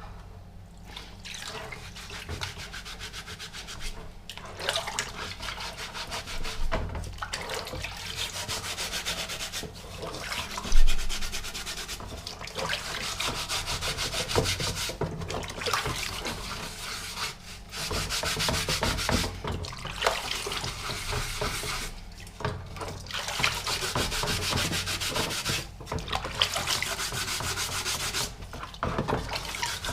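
Scrubbing on the steel shell of an M40 helmet: quick back-and-forth rubbing strokes, stopping briefly every few seconds. There is one loud knock about eleven seconds in.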